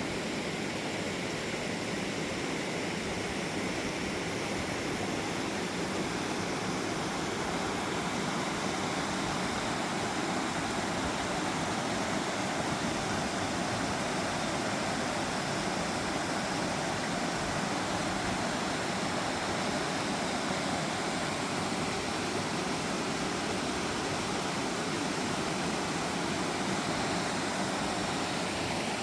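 Mountain valley stream rushing steadily over rocks, a constant even roar of water.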